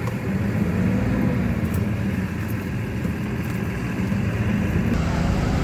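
Diesel engine of a Tata tipper truck running steadily, a low rumble.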